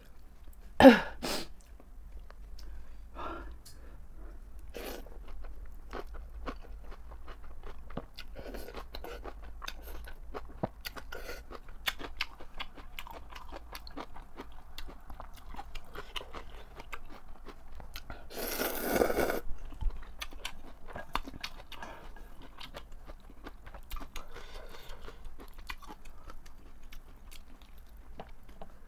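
Close-up eating sounds: chewing and crunching of napa cabbage kimchi and soup noodles, with many small wet clicks throughout. A sharp loud sound about a second in, and a loud slurp lasting about a second around two-thirds of the way through.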